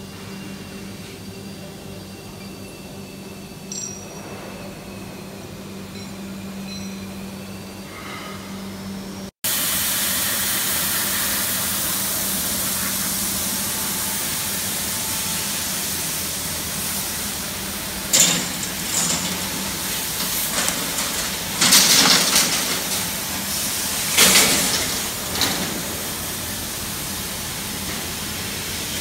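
Primalaser 1500 W CNC fiber laser cutting machine running: at first a steady low hum, then, after an abrupt cut about nine seconds in, a louder steady hiss. In the second half several short, sharp bursts of noise rise out of the hiss.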